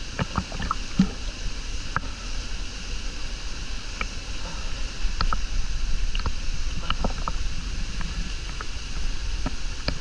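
Water lapping and splashing right at a GoPro held at the pool's surface, with scattered small splashes and drips over a steady rush of water.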